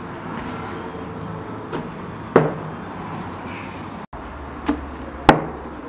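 Dull knocks of Samarkand bread dough rounds being slapped onto the hot inner clay wall of a tandoor with a cushioned pad: four in all, the second and last the loudest.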